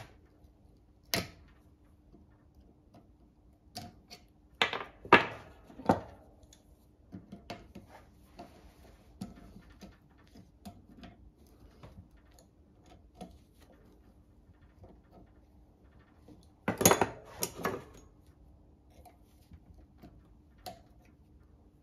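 Metal clinks and knocks from hand tools working at the bearing end of a steel drive axle shaft. They come in scattered taps, with louder clusters about five seconds in and again about seventeen seconds in.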